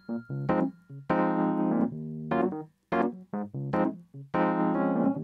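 Background music: electric piano or keyboard chords played in short phrases that start sharply and break off, with brief silences between them.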